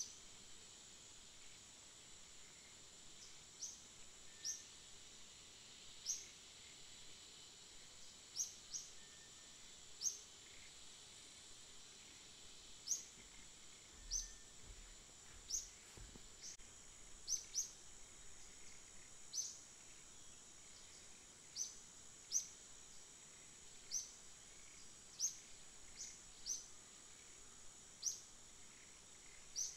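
A bird repeating short, high chirps about every one to two seconds, over a steady high-pitched insect hiss.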